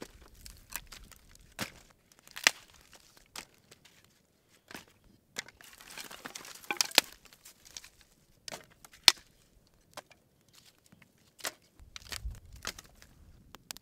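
Dry twigs snapping and rustling as they are broken and fed onto a small fire: irregular sharp cracks throughout, with a denser stretch of rustling and crackling about six to seven seconds in, and a low thump near the end.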